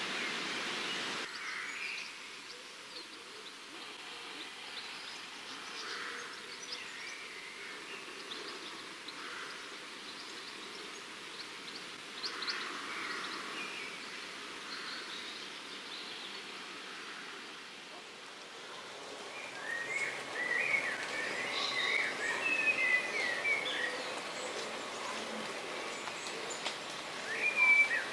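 Small songbirds chirping and twittering over a soft outdoor background hiss. The chirping is busiest about two-thirds of the way in, and a brief louder bird call comes at the very end.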